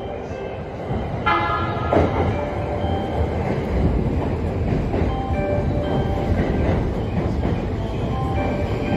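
JR East E235-series Yamanote Line electric train pulling into the platform: a short horn note about a second in, then the steady rumble of its cars and wheels running past as it comes in.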